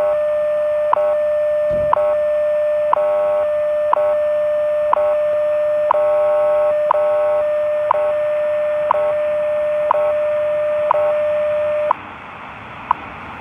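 WWV time-signal broadcast on 10 MHz shortwave, played through a portable radio's speaker: a steady tone with a short tick marking each second, over shortwave hiss. About twelve seconds in the tone stops and only the second ticks carry on, as they do before the voice time announcement.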